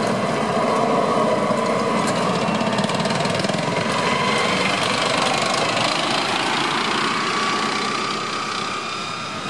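M1 Abrams tank passing close by: the high whine of its gas-turbine engine over the clatter and rumble of its steel tracks, easing off near the end as it moves away.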